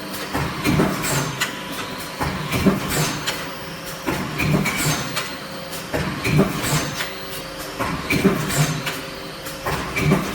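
Induction forging machine with step loader and feeder running: metal clanking and clattering in pairs about every two seconds over a steady hum.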